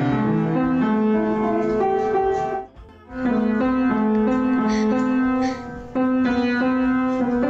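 Piano music: a melody of held notes and chords, with a short break about three seconds in.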